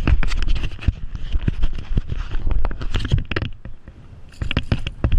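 Irregular scratching and rustling of clothing and grass rubbing against a body-worn action camera as the wearer moves and crouches, over low wind rumble on the microphone.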